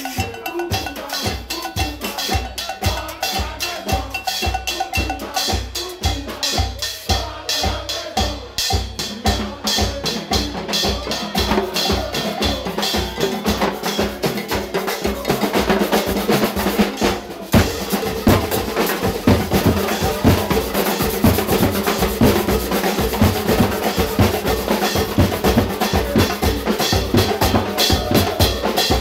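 Carnival drum band of large bass drums and snare-type drums playing a fast, steady, driving rhythm.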